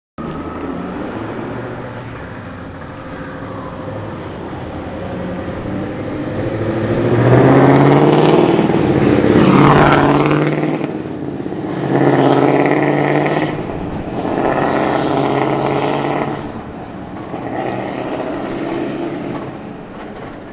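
Scania S580 truck's V8 diesel on loud pipes, building to its loudest as it drives past close by. It then pulls away in three more loud stretches, each broken by a short dip in the engine note as it changes gear, and fades into the distance.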